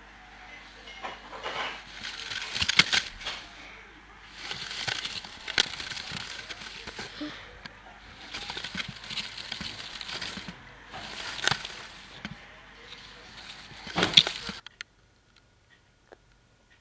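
Bursts of rustling, crackling noise with sharp clicks, sounding like handling noise on the microphone. It cuts off suddenly near the end.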